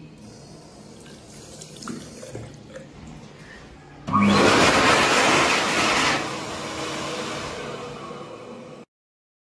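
A water tap runs faintly at first. About four seconds in, an electric hand dryer starts with a sudden loud rush of air, then drops to a lower, fading level after about two seconds.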